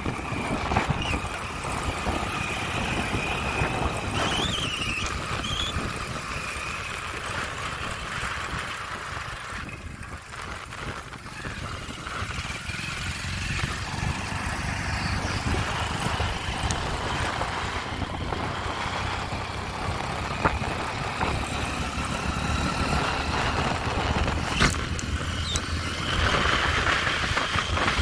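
Motorcycle running steadily along a village road, heard with wind buffeting the microphone. Two sharp knocks come in the latter part.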